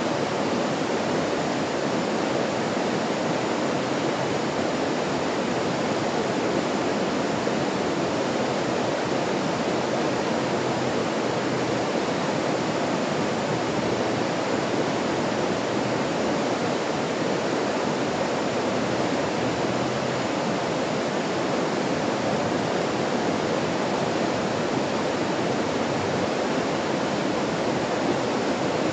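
Stream water rushing, a steady, even hiss with no break or change.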